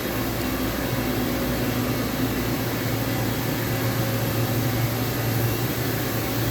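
Steady hum of a powered-up DN Solutions DNM 5700S CNC vertical machining center, a low even drone with faint steady tones above it.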